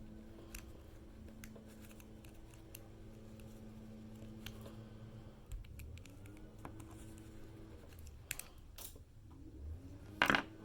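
Sparse small metallic clicks and scrapes of a tool working at the bracket inside a Ford ignition lock cylinder. Near the end comes one sharper, louder snap as a small piece springs loose.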